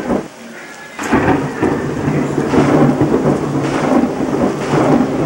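Thunder: a brief loud burst, a short lull, then about a second in a sudden sharp crack opening a long, loud rumble.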